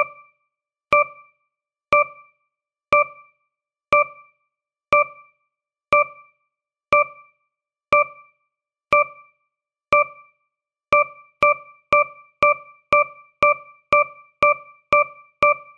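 Countdown timer sound effect: a short electronic tone marking each second, sounding once a second and then quickening to two a second about eleven seconds in as the countdown nears zero. Each tone is struck and dies away quickly.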